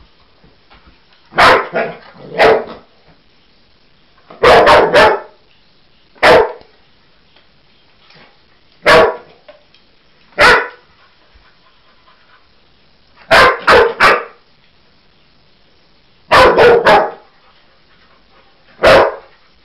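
A dog barking at its toy in play: short sharp barks, sometimes single and sometimes in quick runs of two or three, every couple of seconds.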